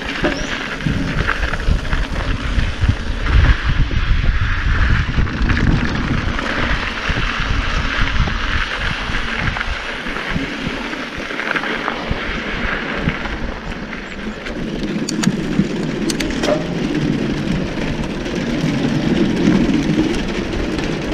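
Mountain bike riding dirt singletrack: knobby tyres rolling over dirt and gravel, with wind buffeting the handlebar-mounted mic and the bike rattling over rough ground, heaviest in the first half. Near the end the tyres run onto a wooden boardwalk.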